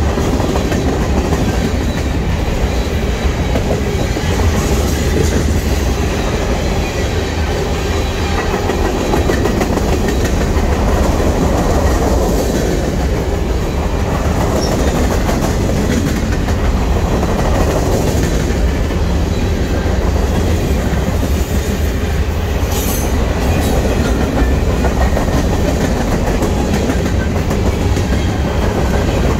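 Freight train cars rolling past at close range, the wheels on the rails giving a steady, continuous noise with a strong low rumble.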